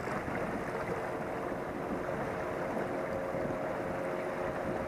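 Wind on the microphone and small waves lapping at the shoreline, a steady rushing noise. A faint steady drone joins about a second in.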